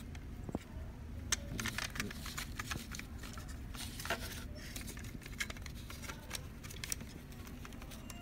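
Hands handling the plastic control-panel assembly of an HP LaserJet Pro printer: scattered small clicks and rustles over a low steady hum.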